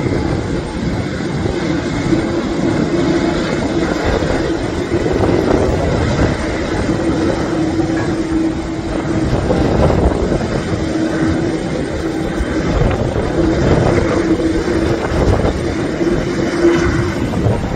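Jet airliner engines running with a steady rumble and a faint hum that comes and goes, with wind buffeting the microphone.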